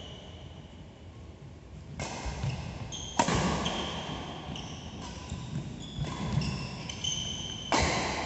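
Badminton rally: racket strikes on the shuttlecock, a sharp one about three seconds in and another near the end, with short high squeaks of shoes on the court mat.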